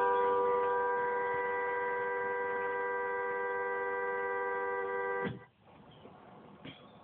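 A steady hum of several held tones that cuts off suddenly about five seconds in, leaving only faint background noise.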